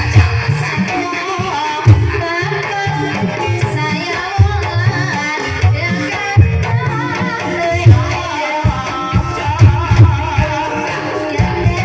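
Banyumasan gamelan music for an ebeg horse dance: kendang hand drums beating a rhythm of strong low strokes, under a wavering sung melody and steady ringing gamelan tones.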